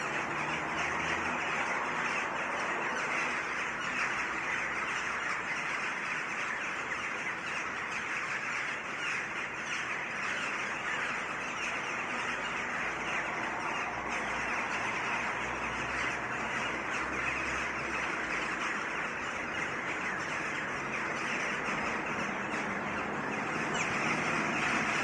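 A dense, steady chorus of many birds chirping and calling together in a tree, with a low hum of city traffic underneath.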